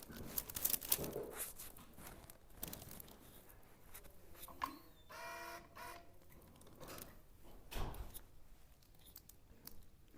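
Crinkling and rustling as a patient shifts onto his left side on a chiropractic adjusting table. A short pitched sound comes about five seconds in, and a single thump near eight seconds.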